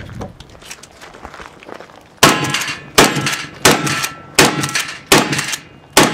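Six rapid shots from a Mossberg 590 pump-action shotgun, about three-quarters of a second apart, starting about two seconds in. Each shot is followed by a short metallic ring, as steel plates are hit.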